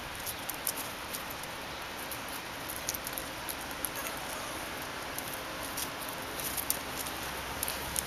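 Light, scattered ticks and scratches of Bichon Frisé puppies' claws and paws on stone paving as they move about, over a steady hiss.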